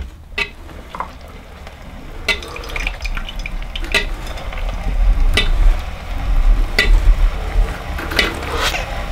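Hand-cranked Victorio food strainer forcing hot cooked nannyberries through its screen, with a wet, squishing churn of berry mush. A sharp click comes about every one and a half seconds as the crank turns. The sound grows louder after the first couple of seconds.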